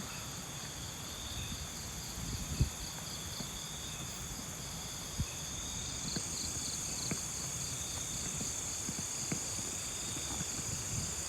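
Night insects, crickets, chirring steadily, one of them in a fast pulsing trill, over a low rumble of wind on the microphone. Two soft thumps come about two and a half and five seconds in.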